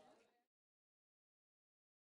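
Silence: the audio fades out within the first half-second and then drops to complete digital silence.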